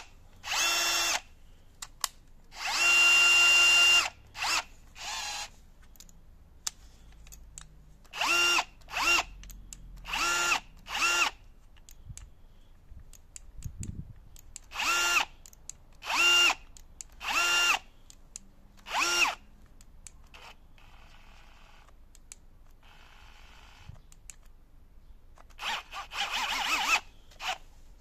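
Bosch AdvancedDrill 18 cordless drill driver run free in a series of short trigger pulls, about a dozen bursts of motor whine at a steady pitch, the longest about a second and a half. Near the end it spins up with a rising whine.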